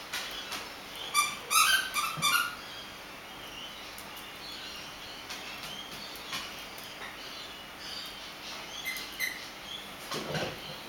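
Jack Russell terrier chewing a plush squeaky toy, making it squeak: a quick run of high squeaks about a second in, and another short squeak near the end.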